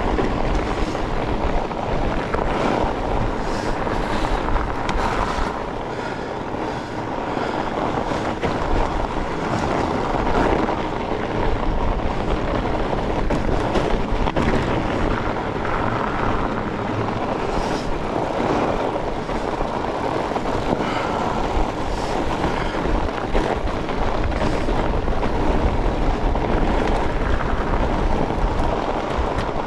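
Steady rumbling noise from riding a fat bike over a snowy trail: wind on the microphone and the fat tyres rolling, with a few light knocks.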